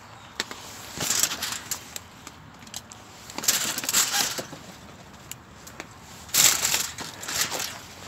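Aluminium foil crinkling and rustling in three bursts as a foil food parcel is handled, with a few light clicks in between.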